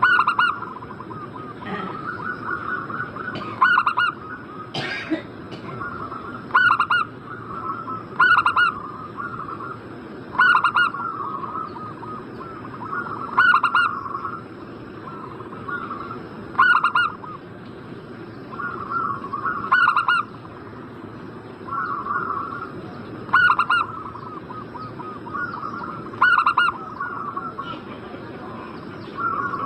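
Zebra doves (perkutut) cooing over and over, each call a quick rolling series of high coos, with a louder call about every three seconds.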